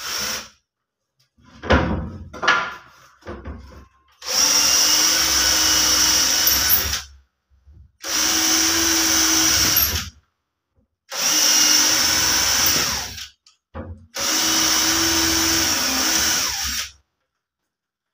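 Handheld electric drill running in four separate bursts of about two to three seconds each at a steady pitch, boring into the wooden wardrobe door for the handles, after a few short knocks and taps.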